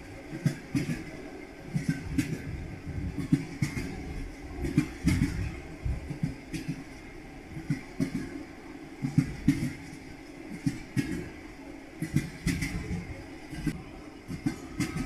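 Railway carriage wheels clattering over rail joints, irregular knocks in quick clusters over a steady low rumble of a moving train.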